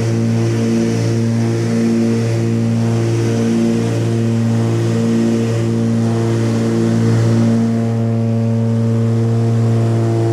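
Twin-engine propeller aircraft droning steadily from inside the cabin, with a slow wavering pulse in its tone.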